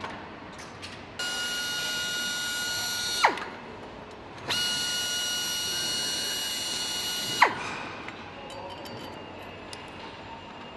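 Power driver tightening fasteners on a car engine assembly: two runs of a steady high whine, each slowing with a steeply falling pitch and ending in a sharp stop as the fastener tightens. Faint metal clinks of parts and tools in between.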